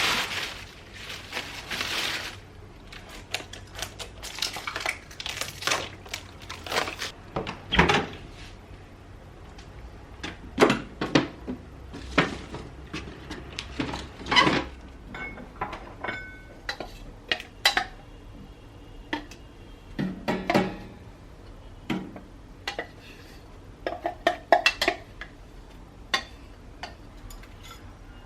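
Dishes and utensils clinking and knocking in handling: a long run of separate, irregular clicks and knocks, some with a brief ring.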